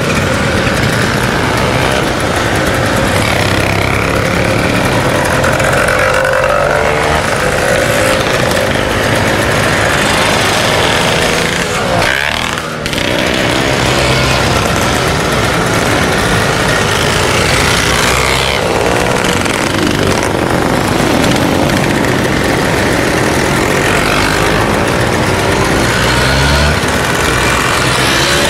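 Several two-stroke vintage Vespa scooter engines running and revving at once, loud and continuous, their revs rising and falling again and again, with a brief lull about twelve seconds in.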